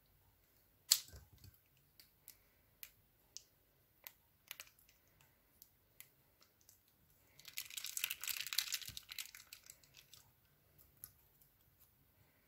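Scissors snip into a plastic piping bag of clear slime with one sharp click, followed by scattered small clicks and taps. About halfway through comes a couple of seconds of crinkling and tearing as the thin plastic bag is torn open around the slime.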